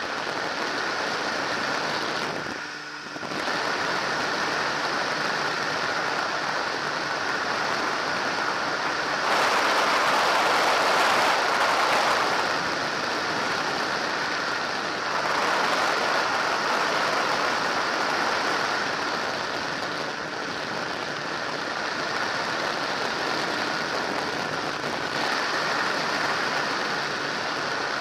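Microlight trike's engine running steadily in cruising flight, under heavy wind rush on the microphone. The sound dips briefly just under three seconds in and is louder for a few seconds from about nine seconds in.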